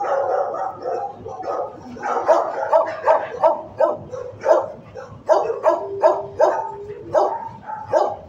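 Shelter dogs barking over one another, short barks coming several a second, with one longer drawn-out call a little past the middle.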